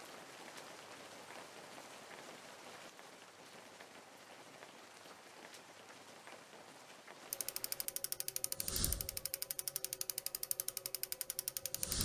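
Faint hiss, then about seven seconds in a fast, even ratchet-like ticking starts, about ten ticks a second, with two whooshes over it: a gear-turning sound effect for an animated logo.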